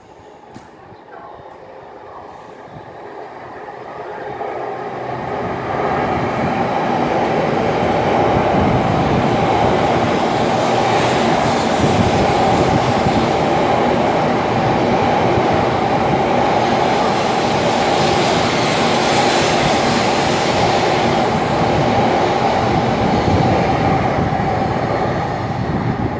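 Taiwan High Speed Rail 700T bullet train running through a station without stopping: the noise of its wheels and air rush swells over the first six seconds into a loud, steady rushing sound as the carriages pass close by, easing slightly near the end as the tail of the train goes away.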